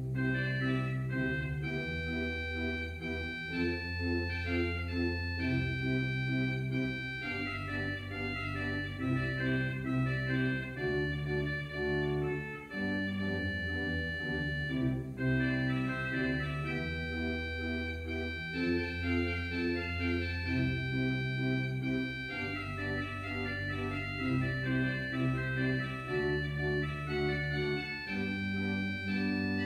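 Organ playing slow, held chords over a moving bass line, a closing piece after the benediction.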